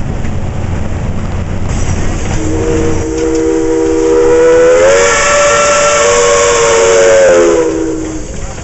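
Steam locomotive Viscose #6's whistle blowing one long blast of about five seconds, beginning a couple of seconds in, with steam hiss over it. Its pitch rises slightly partway through and sags as it shuts off. Before the whistle, the locomotive makes a low rumble running along the track.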